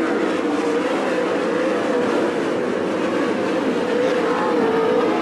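410 sprint cars' methanol V8 engines running at race speed around a dirt oval, a steady drone whose pitch wavers slightly as the cars circle the track.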